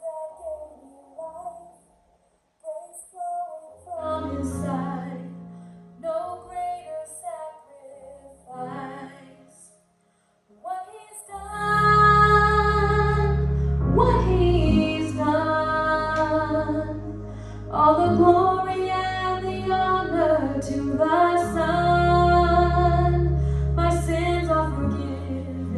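Worship song with a woman singing lead over instrumental accompaniment. It starts sparse and halting, then swells about eleven seconds in with a heavy bass underneath.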